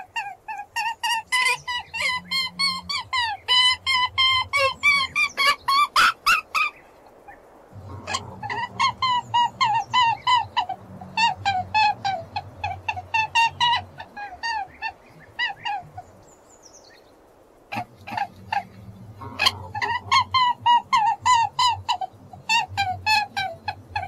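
Rabbit squealing: rapid runs of short, high, downward-sliding cries, several a second, in three bouts with brief pauses about seven seconds in and again around sixteen to eighteen seconds in.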